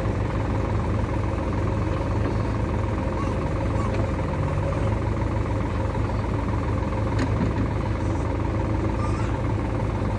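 Sonalika Sikandar DI 50 RX tractor's diesel engine running steadily while it powers the hydraulic tipping trailer, the bed rising.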